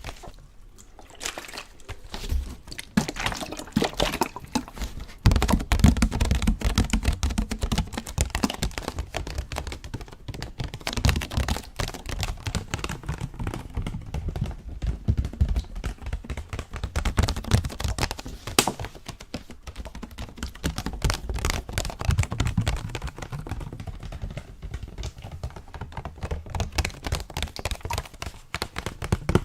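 Close-miked ASMR water sounds: water being handled and poured, heard as a dense, irregular run of small clicks and taps with soft low thumps.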